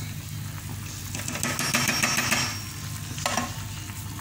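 Plastic slotted spatula scraping and pushing caramelized onions around a hot non-stick frying pan, with the oil sizzling; the scraping gets louder for about a second from a second and a half in, with a shorter scrape near the end. A steady low hum runs underneath.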